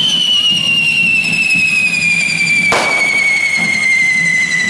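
Whistling carretilla, a devil's hand-held firework on a pitchfork, spraying sparks: one long shrill whistle that slowly falls in pitch. A single sharp firecracker bang nearly three seconds in.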